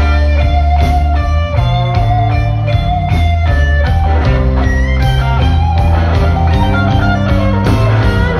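Live blues band playing an instrumental passage: electric guitar, bass guitar and drums keeping a steady beat, with a blues harmonica holding long notes over them.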